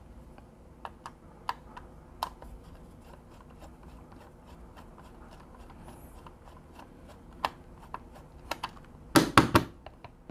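Scattered light clicks and taps of a small plastic-cased electronic device being handled and taken apart, with a quick run of louder clacks about nine seconds in.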